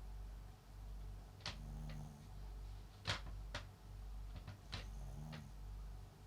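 A small Papillon × Japanese Chin mix dog snoring softly in its sleep, a low rumble that swells and fades with each breath about once a second. Faint sharp clicks are scattered irregularly through it, the loudest about halfway through.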